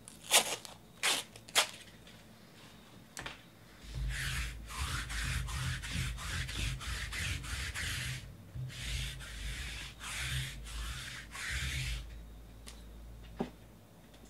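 A few sharp taps on the tabletop, then about eight seconds of quick back-and-forth rubbing strokes, roughly two a second, as something is rubbed across the table surface by hand. One more tap comes near the end.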